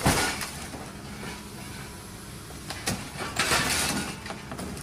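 A car body dropped by a scrap-yard excavator's grapple lands with a loud crash at the start, then the excavator's engine runs steadily. About three and a half seconds in, a louder scraping crunch of metal comes as the grapple clamps the car again.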